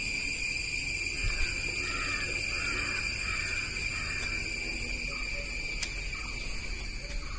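Steady high-pitched drone of insects, with faint bird calls in the distance during the first few seconds.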